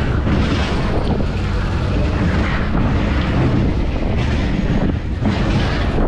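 Roller coaster car rumbling along its steel track, with wind buffeting the microphone.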